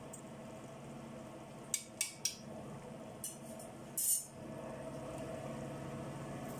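Steel slotted ladle clinking against the aluminium pressure cooker and the stovetop as it is lifted out and laid down: a few sharp metallic clinks between about two and four seconds in, the loudest last, over a steady low hum.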